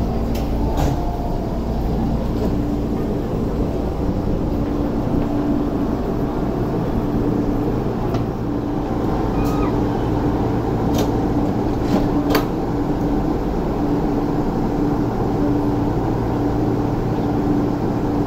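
An MTR MLR electric train standing at a platform, with a steady low hum and rumble. A few sharp knocks come about halfway through, around the time its doors close.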